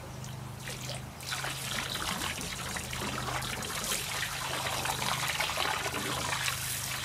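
Water pouring from a watering can's spout into a pond, a steady splashing trickle that starts about a second in.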